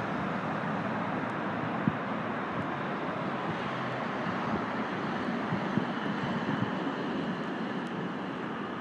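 MBTA Green Line light-rail train running on test, a steady rumbling rush with a few sharp clunks, easing a little near the end.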